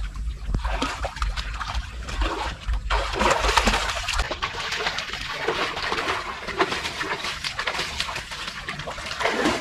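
Pool water splashing and sloshing as a person swims and wades through it, with a low rumble under the first few seconds.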